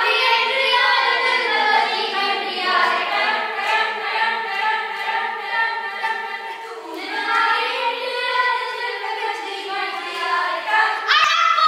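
A group of young voices singing a song together, in phrases with two short breaks.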